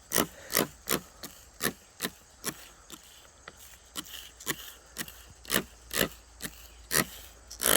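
Dirty vinyl interior panel being scrubbed with cleaner: quick back-and-forth rasping strokes, about two or three a second, easing off in the middle and picking up again toward the end.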